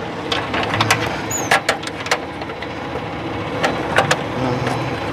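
A truck engine idling steadily, with a scattering of sharp knocks and clanks over it, and a brief high squeak about a second in.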